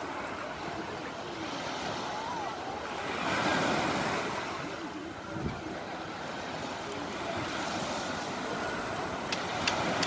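Steady beach ambience of surf and wind, a continuous wash that swells for a second or so about three seconds in.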